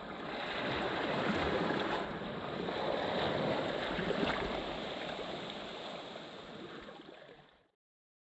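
Small waves washing in and out on a sandy beach, swelling and easing. The sound cuts off suddenly near the end.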